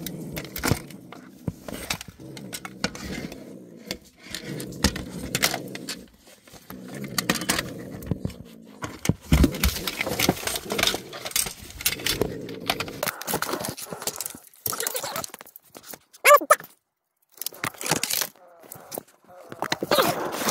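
Clattering, scraping and rustling as a long grabber pole is jabbed and dragged among shoes and clutter under a wooden dresser, with a short squeak about sixteen seconds in.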